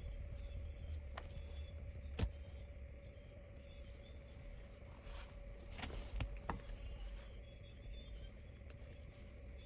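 A few small sharp clicks of tools and parts being handled during tablet repair work, the loudest about two seconds in, over a low steady hum and rumble.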